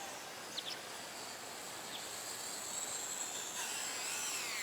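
Eachine Mini P-47 RC plane's electric motor and propeller whining in flight, a steady high tone that begins to waver and slide up and down in pitch in the last second or so as the plane manoeuvres.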